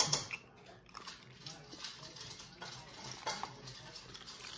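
Red plastic drinking cup handled while someone drinks from it: a sharp knock right at the start, then scattered small clicks and knocks of the cup and tableware.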